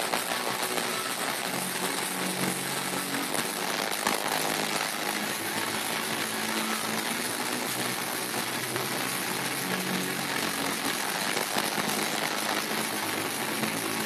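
Steady dense roar of a large arena crowd with amplified music underneath, a few low held notes coming and going.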